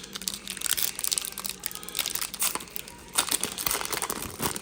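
Crinkling and tearing of a trading-card pack wrapper being ripped open and crumpled by hand, a run of irregular crackles and rustles.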